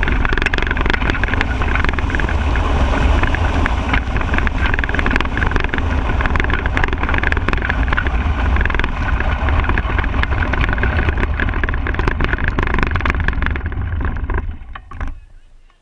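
An unpowered soapbox cart rolling fast downhill on asphalt: a steady loud rumble of its wheels and wind on the onboard microphone, with constant small rattles and knocks from the chassis. Near the end the noise dies away quickly as the cart slows to a stop.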